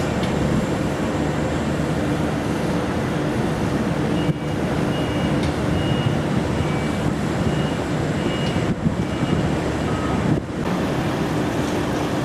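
Steady harbour ambience: a continuous rumble of distant traffic and port machinery with wind on the microphone, and faint short beeps now and then.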